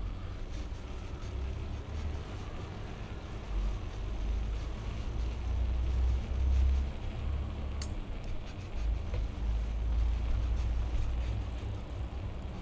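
Street ambience: a low, swelling rumble of road traffic with a faint steady hum, and one sharp click about eight seconds in.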